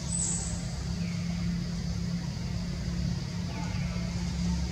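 Steady low engine-like rumble with a constant hum, and two faint short falling chirps.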